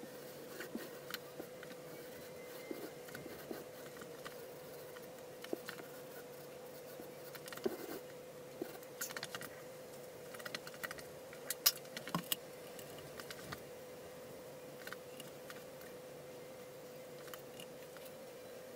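A faint steady hum with scattered light clicks and taps; a few sharper clicks come about eleven to twelve seconds in.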